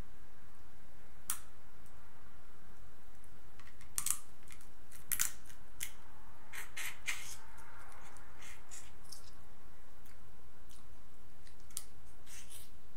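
Shells of boiled crab legs and shrimp cracking and snapping as they are broken and peeled by hand, with eating in between: about a dozen scattered sharp snaps, most of them between about four and nine seconds in.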